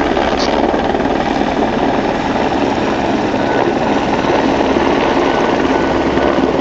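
Helicopter running steadily overhead, its rotor and engine giving a loud continuous rumble with a fast rotor chop.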